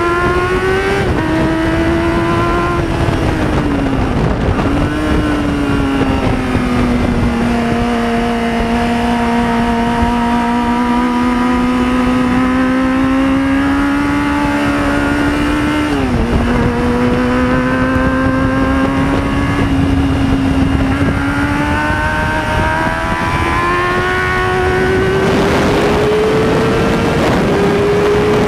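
Onboard sound of a 2005 Yamaha YZF-R6's inline-four engine through a Roadsitalia slip-on silencer with its dB killer removed, ridden on track. The revs fall sharply about four seconds in and hold fairly steady for a long stretch. They then climb gradually through the last ten seconds, with wind rush growing near the end.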